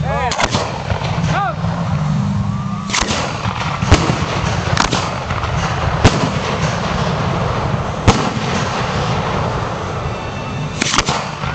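Fireworks going off: a string of sharp bangs every second or two, with a quick double bang near the end, over the voices of onlookers.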